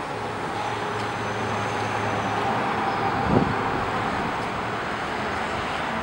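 Steady outdoor road-traffic rumble that swells slightly, with a faint steady hum underneath. A single low thump about three seconds in.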